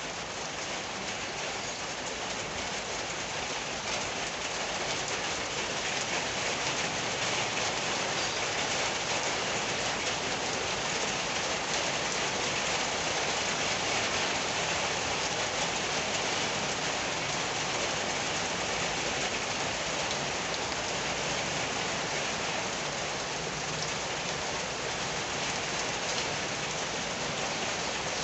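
Steady rain falling: a dense, even hiss of drops that grows a little heavier a few seconds in, then eases slightly.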